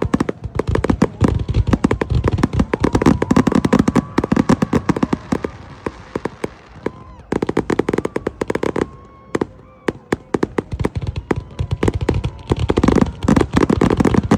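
Aerial fireworks going off in a dense, rapid barrage of cracks and bangs. The barrage thins out to scattered reports about halfway through, then builds back up to a rapid crackling near the end.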